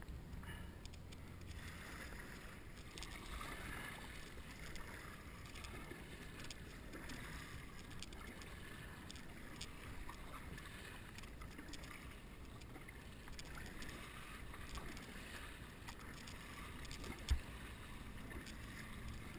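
Kayak being paddled: faint splashes and drips from paddle strokes and water washing along the hull, with one sharper knock about seventeen seconds in.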